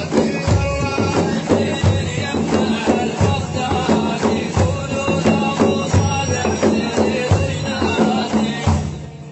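Arabic madih (religious praise) music with a steady hand-percussion beat, fading out near the end.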